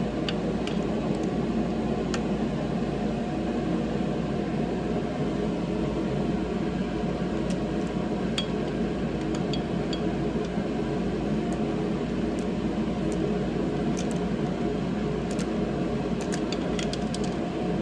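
Steady whirring of a fan-type machine, with a scattered series of light metallic clicks and taps from tools and engine parts being handled.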